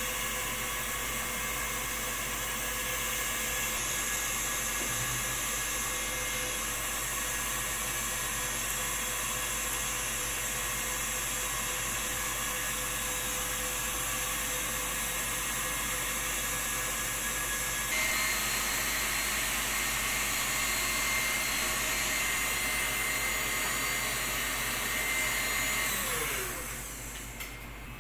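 A steady mechanical whir from a running motor, with several thin whining tones over an even rushing noise. About two-thirds of the way through the whine changes pitch and gets a little louder, and near the end it falls away.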